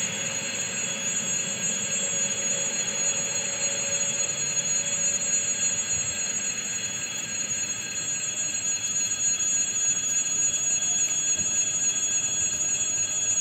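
ED4M electric train pulling away into the distance: a steady rumble of wheels on the rails, with a motor whine that fades out about five seconds in, over several constant high-pitched electrical tones.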